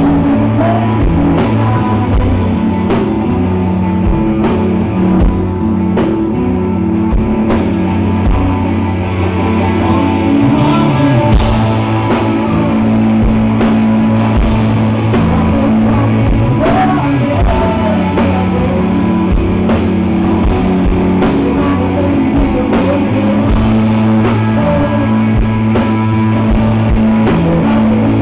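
Rock band playing live: electric guitars, bass and drum kit, with a lead vocal singing in places.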